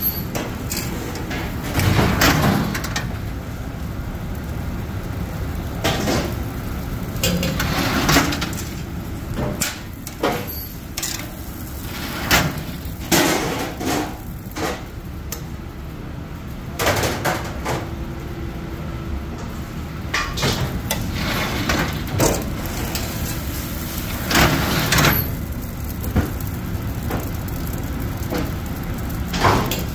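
Commercial kitchen clatter around a char-grill: scattered knocks and clanks, some in quick clusters, over a steady background noise.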